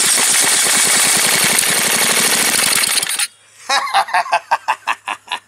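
Old rusted single-cylinder small engine running on gas-and-oil mix poured into the carburettor: a loud, fast crackle of firing strokes for about three seconds that cuts off abruptly, showing that the engine still runs.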